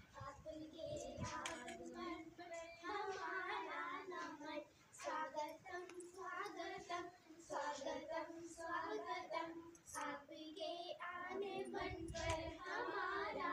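Children singing a song, a continuous high-pitched melody.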